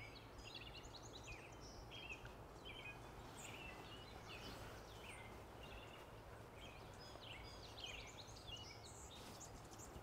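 Songbirds singing faintly, a steady stream of short high chirps and quick rising and falling notes.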